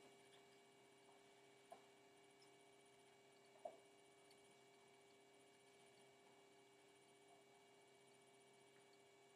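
Near silence: room tone with a faint steady electrical hum and two faint soft clicks.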